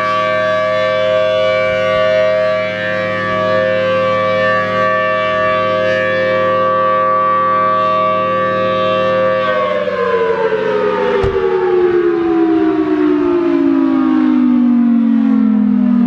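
Federal Signal Thunderbolt 1000T outdoor warning siren sounding its steady alert tone, a two-note chord. About nine and a half seconds in it cuts off and winds down, its pitch falling steadily, with a single click part-way through the wind-down.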